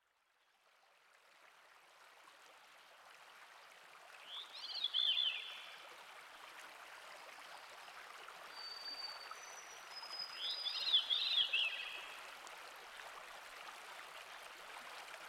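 River water running over a small cascade, a steady rushing that fades in and slowly grows. A bird calls in a short burst of chirpy notes about four seconds in and again about ten seconds in, with a few thin high whistles between the calls.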